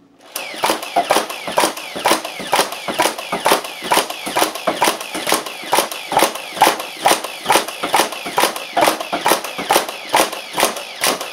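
Nerf Stampede, a motorised fully automatic foam-dart blaster, firing continuously through a full 22-dart magazine. It makes a rapid, even string of shots, about three a second, with foam darts smacking against a wooden door.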